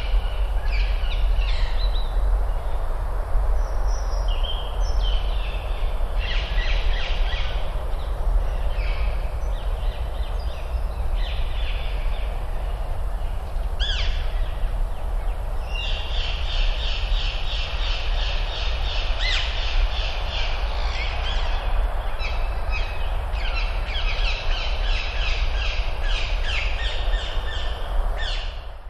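Woodland ambience: birds calling over a steady low rumble, the calls sparse at first and coming thick and fast in the second half, then the whole sound fades out at the end.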